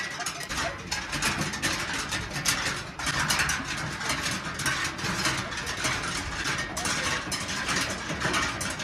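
Large brass prayer wheels rattling and creaking on their spindles as a hand spins them one after another, over a steady rushing noise.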